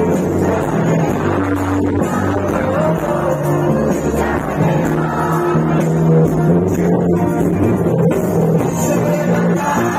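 Live band music played loud through a concert PA, a male lead singer over electric guitar and a steady bass line.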